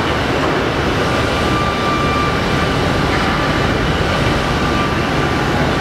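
Steady mechanical running noise from a Bullard Model 75 Cutmaster vertical turret lathe, with a faint high whine that comes in about a second in and fades near the end.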